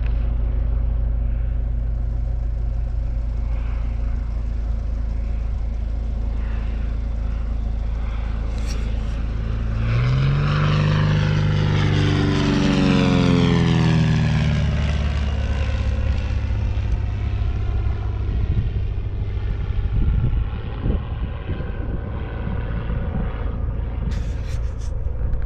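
1959 Cessna 172 single-engine propeller plane flying low past, its engine and propeller note loudest about ten to fifteen seconds in and dropping in pitch as it passes, then going away. A steady low rumble sits underneath throughout.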